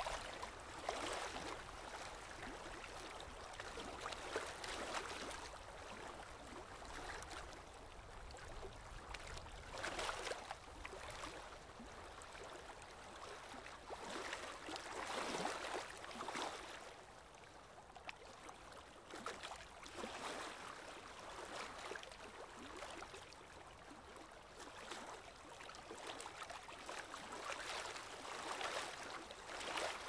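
Lake water lapping and gurgling gently, rising and falling in soft, irregular swells every few seconds.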